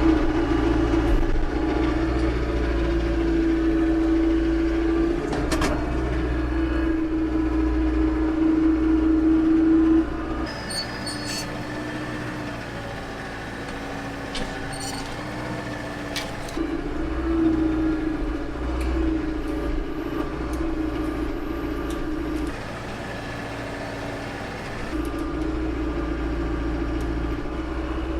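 Branson 5220 compact tractor's diesel engine running under work. Its speed and loudness drop about ten seconds in and come back up later, with a few sharp knocks along the way.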